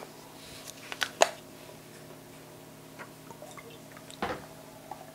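Buttermilk being poured into a measuring cup: a few short clicks and wet glugs, the loudest about a second in and again about four seconds in.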